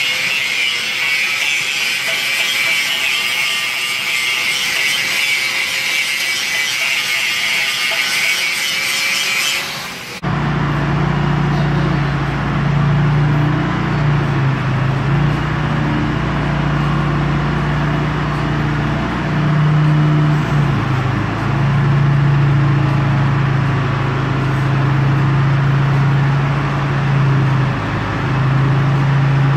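A handheld angle grinder grinding steel on a truck frame, a steady high hiss. About ten seconds in it cuts off abruptly and a forklift's engine takes over, running steadily with its pitch stepping up and down several times while it carries a rollback bed over the truck chassis.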